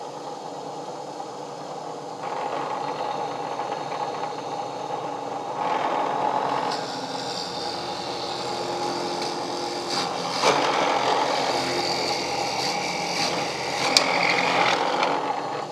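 Benchtop drill press running, its 3/8-inch bit boring through knotty alder blocks. The cutting gets louder in stretches as the bit is fed in, and there is a sharp click near the end.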